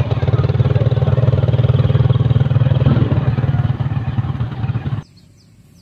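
A small engine running steadily close by, with faint voices underneath. It cuts off suddenly about five seconds in.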